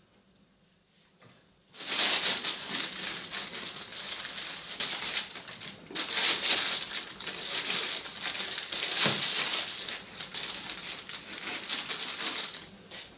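Plastic grow bag rustling and crinkling as hands work at it, in uneven bursts that start about two seconds in and stop near the end.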